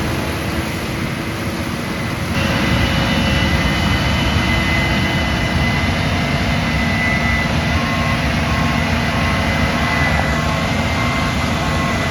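Combine harvester running close by while harvesting corn: a steady heavy machine din with a high whine on top, growing louder about two seconds in.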